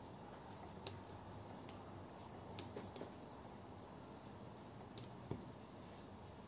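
A few faint, scattered clicks of a pen-spinning mod pen knocking against the fingers as it is spun and caught, over a steady low room hiss.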